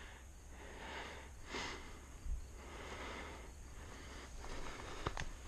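A person breathing and sniffing close to the microphone in soft, repeated rounds, with a couple of light clicks near the end.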